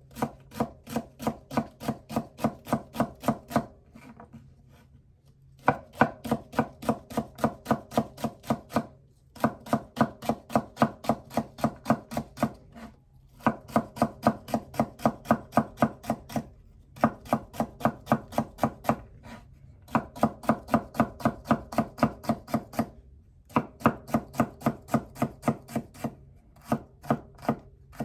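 Kitchen knife chopping celery on a cutting board: runs of quick, even strokes at about four a second, broken by short pauses every few seconds.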